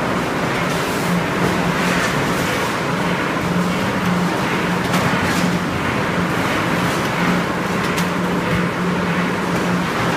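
Packaging line running: a vertical form-fill-seal bagging machine and its conveyors give a steady machine hum and noise, with a few sharp clicks.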